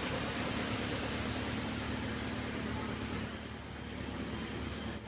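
Drum wood chipper running steadily: a machine hum under a broad rushing noise, the high hiss thinning out about three and a half seconds in.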